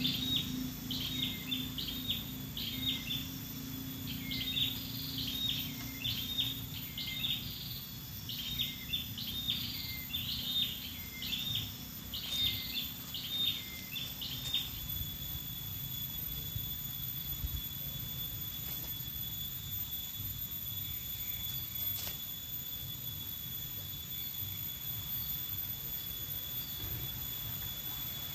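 A bird calling over and over with short, sharp notes in quick runs for about the first half, then falling silent, over a steady thin high-pitched drone and outdoor background noise.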